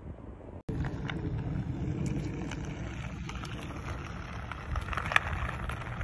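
Wind on the microphone, then after a sudden cut a steady rumble on lake ice, broken by irregular sharp clicks and scrapes as a skater pushes himself along with two poles.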